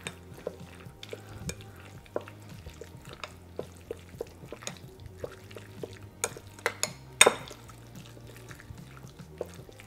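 Chopsticks stirring sliced raw chicken in a glass bowl, tapping and clicking against the glass a few times a second at irregular intervals, with one louder clack about seven seconds in. The chicken is being mixed with salt, pepper and water to tenderize it.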